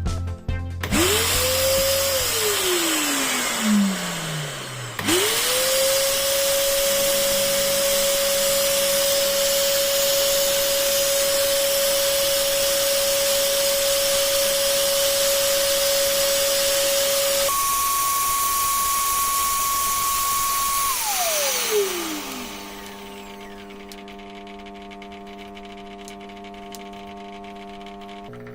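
Carpet cleaner's motor whining up to speed, switched off after a second and spinning down, then started again and running steady for about twelve seconds. Its pitch then jumps higher for a few seconds before it is switched off and spins down.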